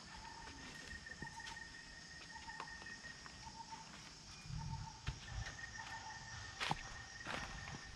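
Insects chirring in the background: a steady high trill with a lower pulsing note that repeats about once a second. A few soft rustles and clicks are heard, with a dull thump about four and a half seconds in.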